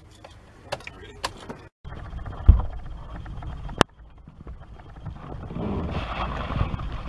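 Handling noises inside a pickup truck cab. After a few light clicks comes a heavy thump and then a sharp click. A rising rustle and shuffle follows as a person climbs in through the open passenger door onto the seat.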